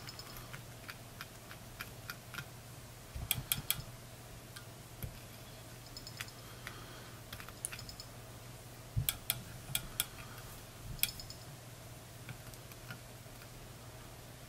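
Scattered light clicks and taps from hands working a thread bobbin at a fly-tying vise while winding thread onto the fly's head, with small clusters of clicks about three seconds in and again around nine seconds in. A low steady hum sits underneath.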